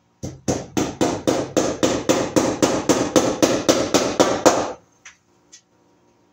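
A hammer striking wood overhead in a quick, even run of about seventeen blows, some four a second, then stopping, with a couple of light clicks after.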